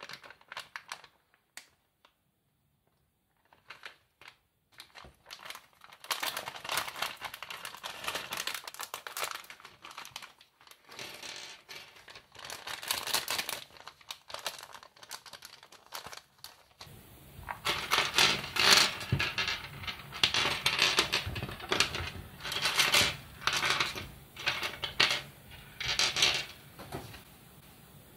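Foil LEGO polybag crinkling and tearing as it is handled and opened. A few light clicks come first, then crackly bursts from about five seconds in, louder in the second half, along with small plastic LEGO pieces clicking onto a hard tabletop.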